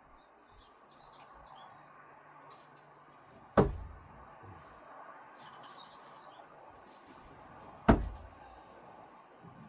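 Two thrown screwdrivers hitting the target, each a sharp knock, about four seconds apart. Birds chirp in the background.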